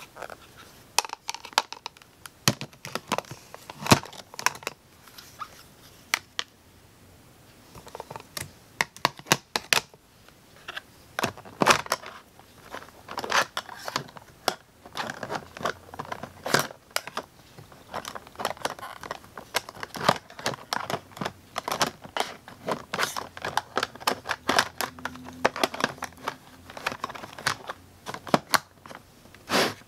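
Plastic makeup compacts and palettes clicking and knocking against each other and against plastic drawer trays as they are sorted by hand, in irregular taps with a short lull about seven seconds in.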